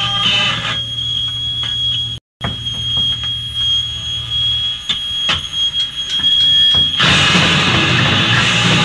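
Electric guitar feedback holding one steady, high whine over scattered clicks, with a brief dropout in the recording. About seven seconds in, a punk band's distorted guitars and drums crash in loudly.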